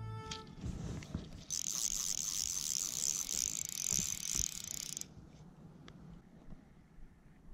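Fly reel's ratchet buzzing as its handle is turned to wind line in. It is a fast, even rattle of clicks lasting about three and a half seconds, stopping abruptly.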